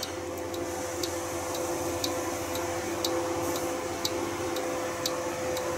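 A clock ticking steadily, about once a second, over a steady low electrical hum.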